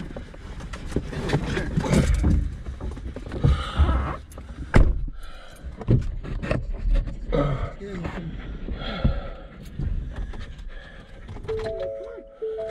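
Dogs panting and scrambling into the back of a car, with knocks and thumps against the car's interior. Near the end a few steady beeping tones repeat.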